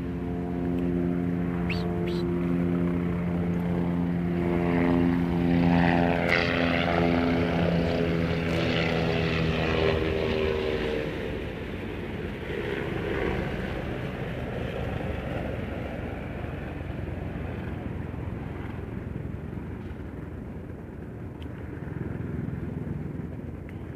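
A steady engine drone of constant pitch, loud over the first ten seconds and then fading away into a low hum.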